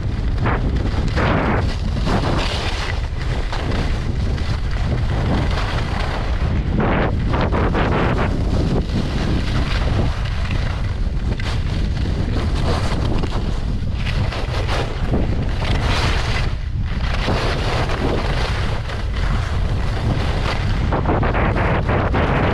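Wind buffeting the camera microphone on a skier's fast descent, a constant low rumble. Over it, skis hiss and scrape on groomed snow in swells that rise and fall with the turns.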